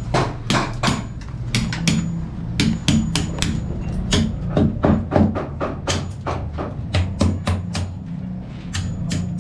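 Background music with a busy percussive beat: sharp wood-block-like knocks, several a second, over a stepping bass line.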